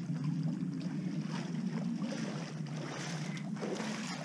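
Legs wading through knee-deep water, with irregular sloshing splashes, over a steady low hum.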